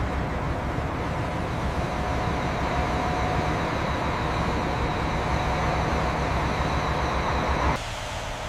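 Steady mechanical rumble with a thin, steady whine over it, cutting off abruptly near the end and leaving a quieter hiss.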